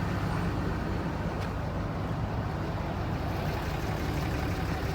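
Cummins diesel truck engine idling steadily, a low even hum with no changes in speed.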